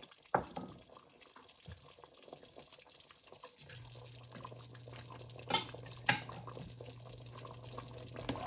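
Chicken curry simmering in a stainless steel pot with a soft bubbling, as sliced bell peppers are tipped in from a bowl and stirred with a silicone spatula. A few sharp knocks stand out, and a low steady hum comes in about halfway through.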